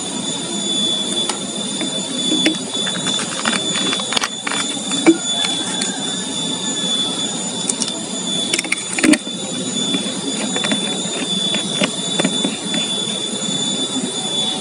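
Plastic bottles and caps being handled: scattered clicks and knocks as a bottle is closed and a trigger-sprayer head is screwed onto a plastic spray bottle, the loudest about five and nine seconds in. A steady high-pitched whine runs underneath.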